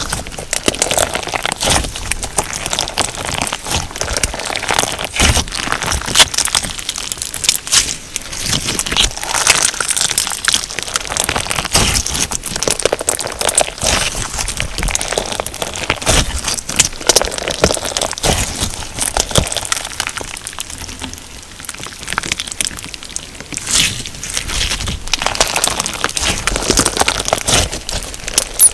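Crunchy slime filled with sugar beads being squeezed and worked by hand: a dense, irregular run of crackles, pops and crunches.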